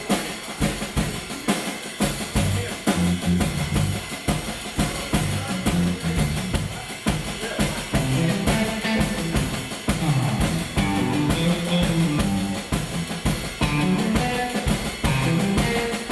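Live blues band playing an instrumental intro: drum kit keeping a steady beat, with a bass line coming in after about two seconds and higher instrument notes above it.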